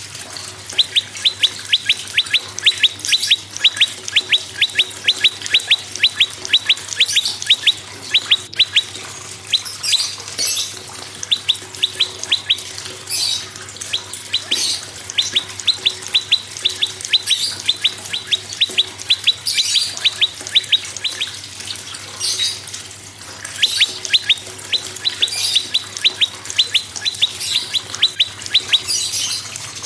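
Prenjak birds singing: long fast runs of sharp, evenly repeated notes, about four a second, with higher chirps breaking in every few seconds.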